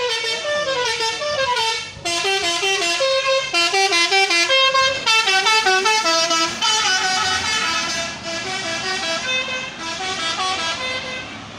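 Bus telolet horn, a set of air horns playing a quick tune: short notes stepping up and down, several horn tones sounding together, with a brief break about two seconds in and softer notes near the end.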